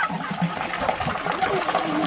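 Fresh mountain meltwater running and trickling, a steady rush, with indistinct voices mixed in.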